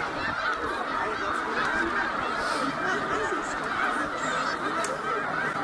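A huge flock of snow geese calling all at once, a dense, steady chorus of many overlapping honks.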